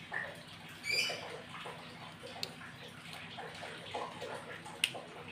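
Faint handling of a Zippo-style petrol lighter being reassembled, with two sharp metal clicks, over a steady low hum. A short high chirp comes about a second in.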